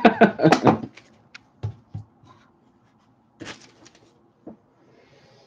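A brief vocal sound at the start, then a few light clicks and knocks as a pocketknife and its box are handled and set down on a cutting mat.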